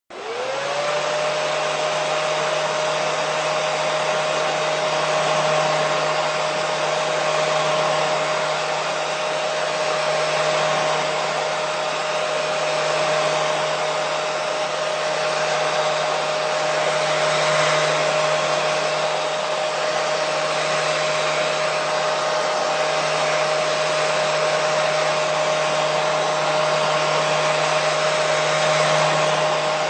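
Hair dryer switched on, its motor whine rising in pitch within the first second and then holding steady over a continuous rush of blowing air.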